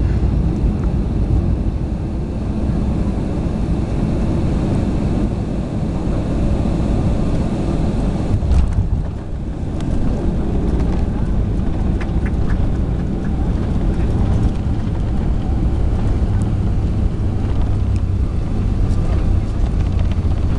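Steady low rumble of a jet airliner heard from inside the cabin on the ground just after landing: engine noise and the wheels rolling on the runway. There is a brief louder knock about eight and a half seconds in, after which the rumble dips for a moment.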